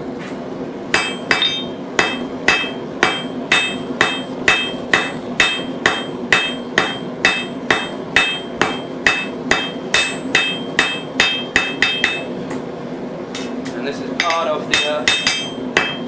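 Blacksmith's hand hammer forging a red-hot small steel bar on an anvil: steady, evenly spaced blows about two and a half a second, each with a bright metallic ring. The blows stop about twelve seconds in and start again about two seconds later, over a steady background hum.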